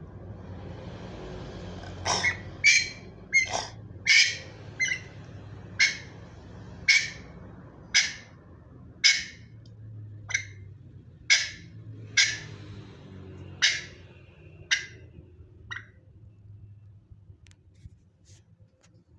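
A run of short, sharp coughs, about one a second, getting fainter near the end: a pet copying a person's cough.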